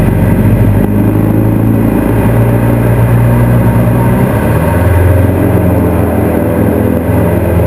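A Super Decathlon's four-cylinder Lycoming engine and propeller running loud and steady, heard inside the cabin. The engine note shifts in pitch about halfway through as the aircraft manoeuvres.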